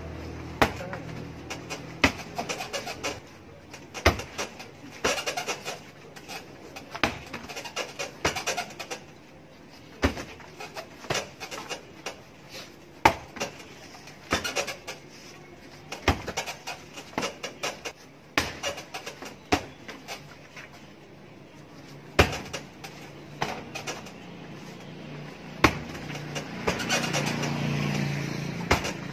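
Taekwondo kicks striking a padded heavy punching bag, a sharp smack every second or two, some much louder than others. A low hum rises near the end.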